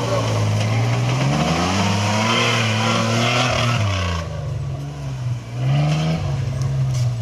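Off-road 4x4 vehicle's engine revving hard. The pitch climbs over the first couple of seconds, falls about four seconds in, then rises again near the end.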